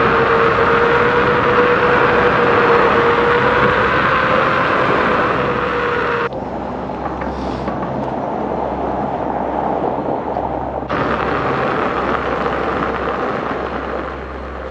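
Volvo EX30 car driving: steady road and tyre noise, with a faint steady whine in the first six seconds. The sound changes abruptly twice, about six and eleven seconds in.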